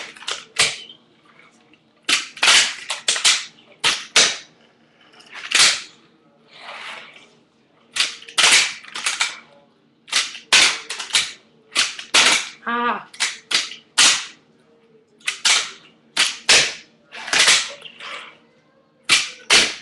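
A handboard (a hand-sized skateboard) being popped and landed again and again: sharp clacks of the tail and wheels striking a hard surface, coming in quick clusters of two to four with short gaps between.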